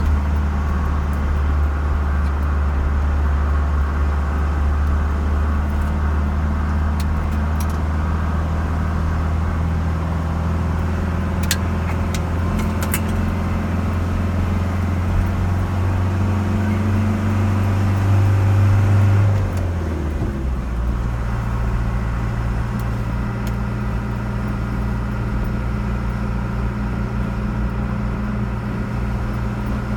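A car running at road speed, heard from inside: a steady low engine drone with tyre and road noise. About two-thirds of the way through, the engine note swells briefly and then shifts to a different steady pitch.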